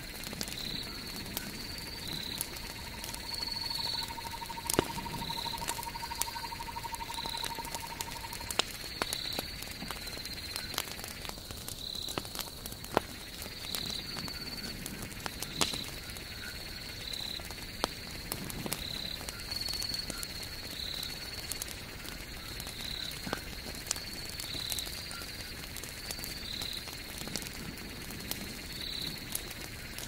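Wood campfire burning with irregular sharp crackles and pops. Behind it runs a night chorus, a high call pulsing about once a second, and for the first eight seconds or so there is also a thin steady tone.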